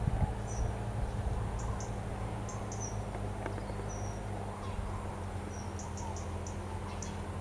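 Short, high-pitched chirps, irregularly spaced, over a steady low hum.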